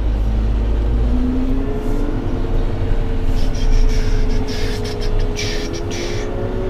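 Fendt tractor running under load as it pulls away towing a loaded low trailer, heard from inside the cab: a steady low engine rumble with a whine over it that climbs a little in the first couple of seconds and then holds steady.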